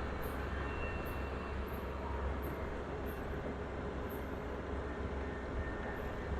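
Rice combine harvester running steadily: a low engine drone under an even rush of machinery noise.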